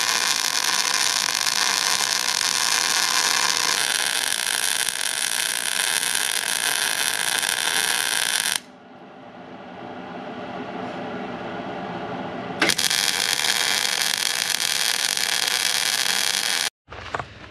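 MIG welder tacking steel plate, its arc crackling and sizzling in two runs. The first lasts about nine seconds and the second about four, starting a little before the three-quarter mark. Each run starts and stops abruptly.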